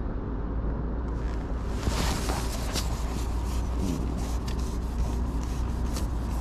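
Steady low rumble with rubbing and rustling noise and many quick clicks starting about a second in, loudest around two seconds in.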